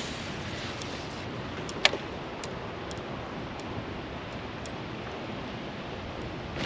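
Steady hiss of wind and water around a kayak, with one sharp click about two seconds in and a few faint ticks after it.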